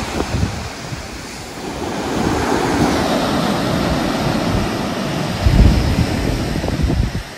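Ocean surf breaking and washing up a sandy beach, a continuous rushing wash, with wind rumbling on the microphone. The low rumble rises sharply about five and a half seconds in.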